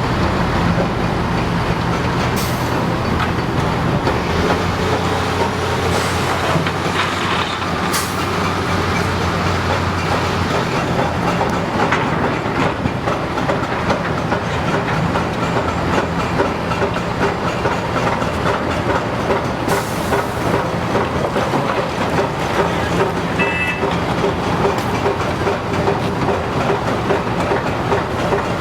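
Hitachi 330 excavator running: a steady diesel engine drone under a continuous dense clatter, with a few sharper knocks about 2, 8 and 20 seconds in.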